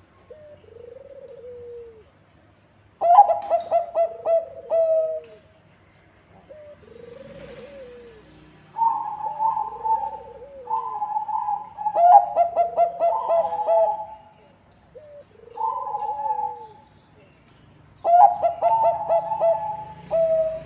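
Bangkok-type zebra dove (perkutut) cooing: several loud phrases of rapid staccato coos, with softer, lower single coos between them.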